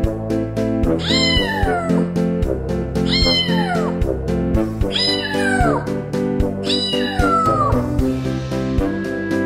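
Cat meows over music with a steady beat: four meows about two seconds apart, each rising and then sliding down in pitch, the last one about three-quarters of the way through.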